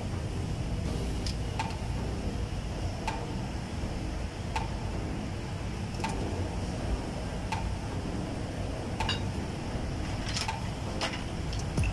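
Light metallic clicks from a hand tool on the water pump's bolts as the pump is fastened to the engine, about one every second and a half, with a few quicker clicks near the end, over a steady low rumble.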